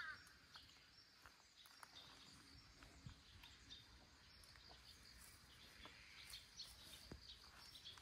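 Near silence: faint outdoor ambience with scattered soft ticks and a brief falling chirp at the very start.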